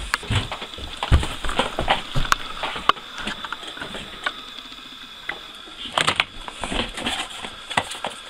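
Footsteps knocking down carpeted stairs, then a desk chair shifting and a small cardboard box being handled, with scattered knocks and rustles.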